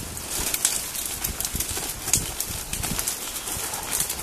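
Footsteps and rustling through wet bankside vegetation, with irregular crackles and light knocks, as someone pushes through or handles a fallen branch.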